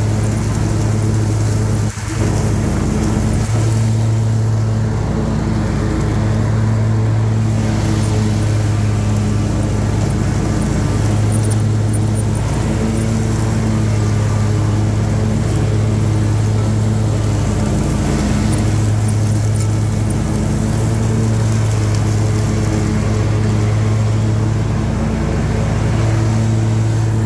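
Hustler X-ONE zero-turn mower's Kawasaki FX commercial-grade engine running steadily under load with the mower blades engaged while the mower drives across the lawn. A brief dip in loudness about two seconds in.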